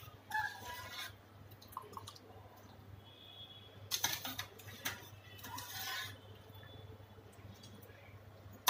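A steel slotted spoon clinking and scraping in a steel pot, with water splashing and dripping, as parboiled potato slices are scooped out of hot water and slid into a bowl of cold water several times.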